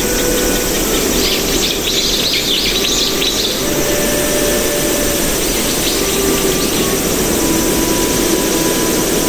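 Background soundtrack: a steady rushing noise under scattered short held notes, with bursts of high chirping trills about one to three and a half seconds in and again around six seconds.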